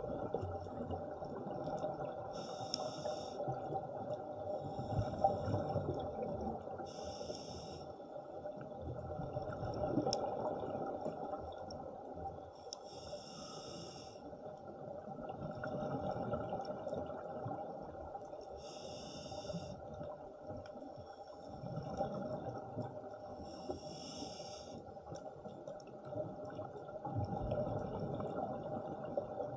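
Scuba diver breathing through a regulator underwater: short hissing breaths and bubbling exhalations repeat every few seconds over a steady underwater rumble.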